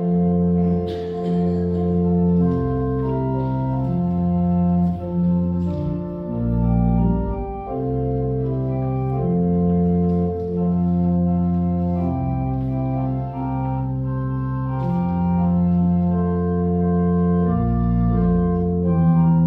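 Church organ playing a hymn tune in sustained chords over a bass line, changing chord every second or two. This is the opening of the closing hymn, with no congregation singing yet.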